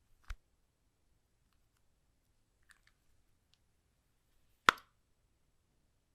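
Handling clicks on a quiet background: a short click just after the start, a few faint ticks, then one loud, sharp snap about four and a half seconds in.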